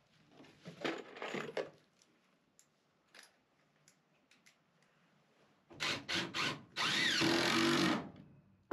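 Screws rattling in a plastic tub as a handful is picked out. Near the end, a cordless drill drives a screw into a wooden door track: three short blips to start the screw, then a run of about a second as it sinks into the wood.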